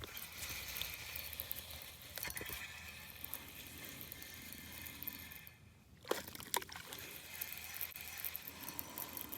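Faint lapping and trickling water around a fishing boat, with a sharp click at the start and a few lighter clicks about six seconds in, typical of fishing reel and tackle handling.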